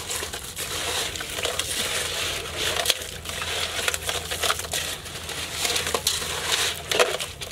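Small crabs being stirred and scrubbed by hand in a little water in a steel basin: a continuous clatter of shells clicking and scraping against each other and the metal, with harder knocks about three seconds in and about seven seconds in.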